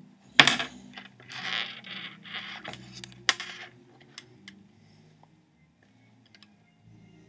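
Alligator-clip leads and a resistor being handled and clipped together on a tabletop: a sharp click about half a second in and another just after three seconds, with rustling of wire in between, then a few faint ticks.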